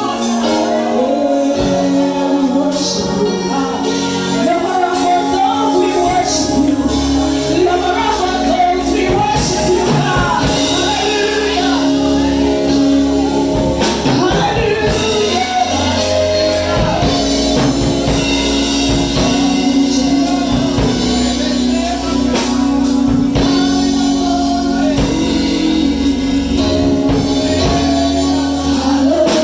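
Gospel worship music: singing over a band with sustained keyboard chords and a steady drum beat.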